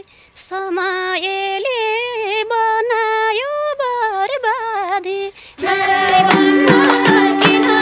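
A woman sings a slow, heavily ornamented Nepali folk (dohori) line unaccompanied, with a quick breath about half a second in. About five and a half seconds in, the band comes in with flute and a steady drum beat.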